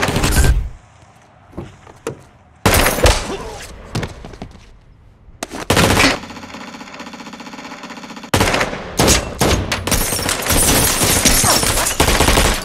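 Movie gunfight with rapid rifle fire. Loud bursts come at the start, around three seconds in and near six seconds, with a steady droning tone for about two seconds after. Continuous heavy gunfire fills the last four seconds.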